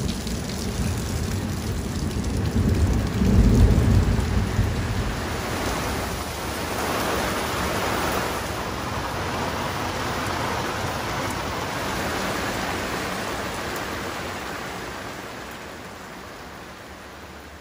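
Heavy rain pouring onto the water and the deck of a sailboat, with a low rumble about three seconds in. The rain is heaviest in the middle and fades toward the end.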